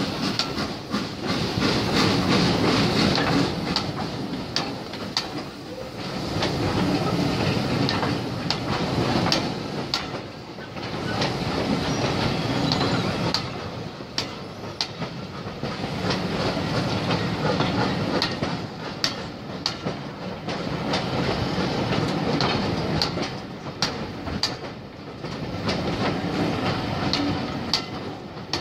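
Train of passenger coaches rolling slowly past close by, the wheels clicking over the rail joints. The sound swells and falls about every five seconds as each coach's wheels go by.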